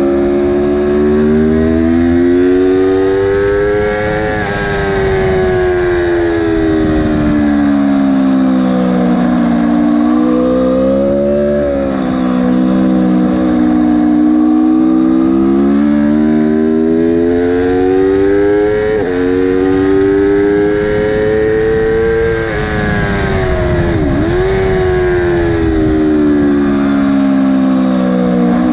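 Aprilia superbike's engine heard from on board at track speed, its pitch climbing under throttle and dropping back several times as the rider brakes and changes down, with sharp quick dips about twelve, nineteen and twenty-four seconds in, over a steady rush of wind noise.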